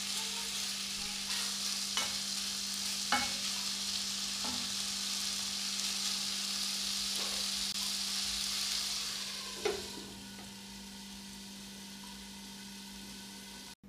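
Chicken pieces and sliced red onion sizzling in a frying pan, stirred with a wooden spatula that knocks against the pan several times. About ten seconds in a glass lid clacks onto the pan and the sizzling drops to a quieter, muffled hiss.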